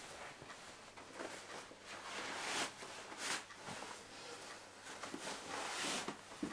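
Bedclothes and a duvet rustling as a man sits up and gets out of bed, in a few swishes, the strongest about halfway through and again near the end.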